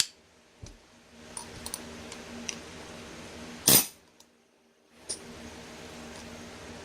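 Light metallic clicks of universal joint parts being handled, then one sharp tap about three and a half seconds in as a bearing cap is tapped into the Ural's universal joint to seat it. A steady low hum runs underneath.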